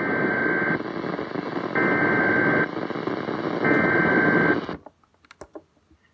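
Weather radio alert: three bursts of digital SAME header data tones, each just under a second long and about a second apart, over steady radio static that cuts off abruptly near the end.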